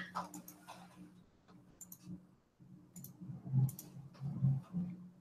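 A few sharp, faint computer mouse clicks spaced out over a steady low hum, as presenter controls are switched on a video call.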